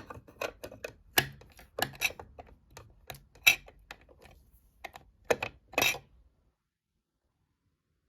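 Irregular sharp clicks and light knocks from a sewing machine being handled, about a dozen over six seconds.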